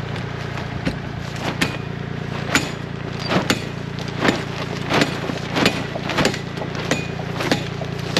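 Plastic sheeting of a high tunnel snapping and crackling in gusty wind, about ten sharp snaps over a steady low hum.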